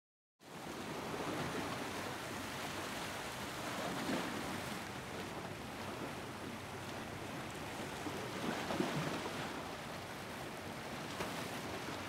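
Sea waves washing: a steady rush of surf that comes in after a brief silence, swelling a little around four seconds in and again near nine seconds.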